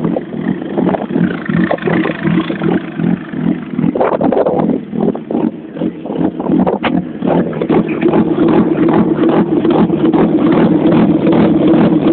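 Mercedes stock-car engine idling through an open side exhaust pipe with no silencer, running with a fast, uneven beat. It runs louder and steadier from about eight seconds in.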